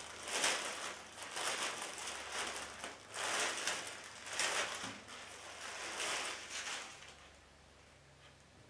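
Hat packaging being handled and rustled by hand as a cap is taken out, in a string of noisy bursts that die away about seven seconds in.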